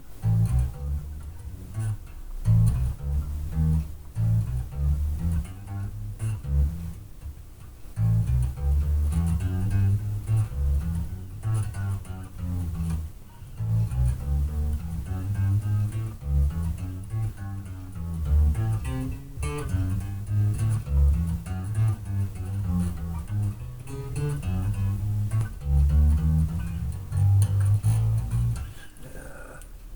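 Five-string electric bass guitar played through a bass amp cabinet: a quick run of low single notes changing several times a second, stopping about a second before the end. It is picked up by a webcam microphone across the room.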